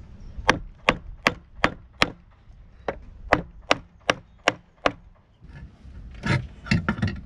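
Block of wood banged onto a boat's stainless-steel tiller head to press its sides in and tighten its fit on the wooden tiller, which had been knocking: five sharp knocks in quick succession, a short pause, then six more.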